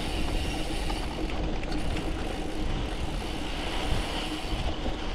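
Steady rushing noise from a gravel bike moving fast on a sandy gravel road: wind buffeting the action camera's microphone over the rumble of the tyres.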